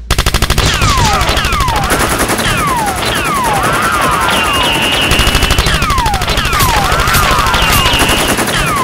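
Automatic gunfire sound effects, rapid shots in long strings, with repeated short falling whistles like bullets whizzing past. They are dubbed over toy Nerf blasters being fired in a staged battle.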